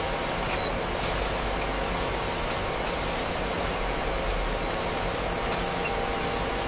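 Factory machinery running steadily: a constant hiss over a low hum, with no breaks or changes.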